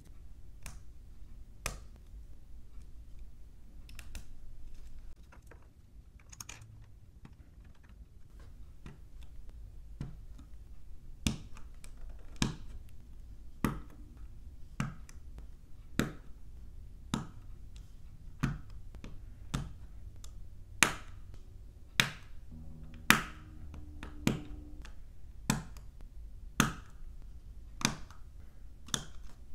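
Plastic LEGO bricks clicking as they are pressed together by hand: a few scattered sharp clicks at first, then a steady series of clicks about once a second through the rest, with a short stretch of handling noise about four seconds in.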